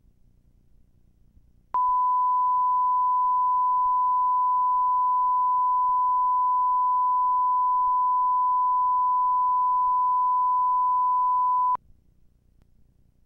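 Steady 1 kHz reference test tone of a videotape leader's colour bars and tone, one pure pitch held for about ten seconds, starting about two seconds in and cutting off sharply near the end.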